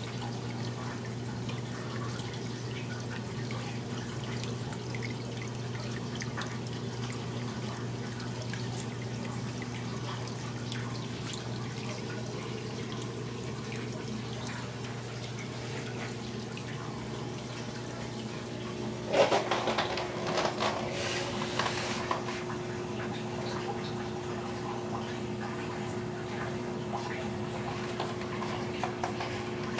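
Steady hum of aquarium pumps with water trickling and splashing in the tank. About two-thirds of the way in, a louder rustling clatter lasts a few seconds.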